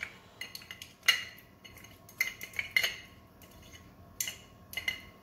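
Spoon stirring a cocktail in a glass around a large ice block, clinking against the glass and ice in irregular short ringing clinks.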